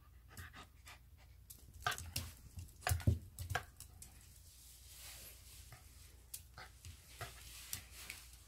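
Small Pomeranian–Spitz mix dog panting during play, with a cluster of sharp clicks and knocks about two to three and a half seconds in.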